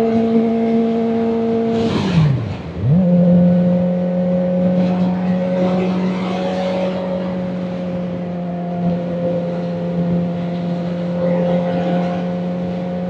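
Kawasaki Ninja ZX-4RR's inline-four engine running at steady road speed. About two seconds in, the revs drop sharply and come back at a slightly lower steady pitch, as in an upshift, then hold steady.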